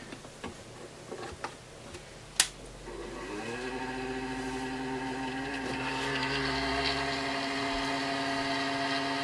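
A sharp click about two and a half seconds in. Then the 12V power supply's cooling fan starts, its pitch rising briefly as it spins up, and settles into a steady whirring hum with several tones; it is a bit noisy, the fault the fan is being replaced for.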